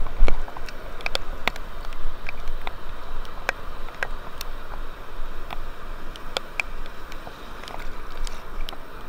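Water sloshing and splashing, with scattered sharp ticks at irregular times and a low buffet of wind on the microphone right at the start.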